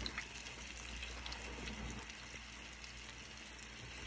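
Flour-dredged chicken pieces frying in shallow hot oil in a pan: a steady sizzle with many small crackles.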